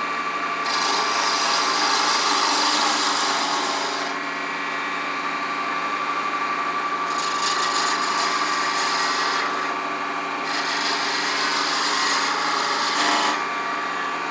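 Wood lathe running steadily while a skew chisel cuts two spinning ebony beads: three spells of hissing cutting noise over the lathe's steady hum, the last ending shortly before the tool is lifted off.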